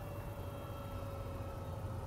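Aerospatiale AS332L1 Super Puma's turbine engines spooling down after shutdown: a thin whine sinking slowly in pitch over a low steady hum.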